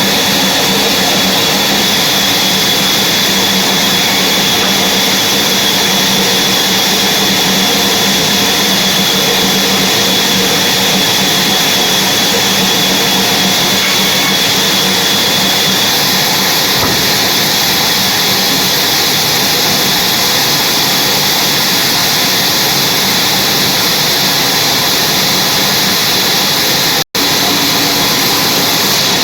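Sawmill machinery running steadily: a loud, even machine noise with a high steady whine. The sound drops out for an instant near the end.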